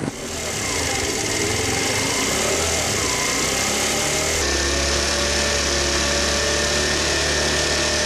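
Small motor scooter engine running steadily, heard from on board. The hum shifts abruptly about halfway through to a slightly different steady note.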